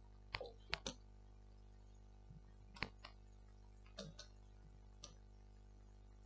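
Scattered light taps and clicks, about eight of them, some in quick pairs, from fingers tapping an interactive touchscreen panel, over a faint steady hum.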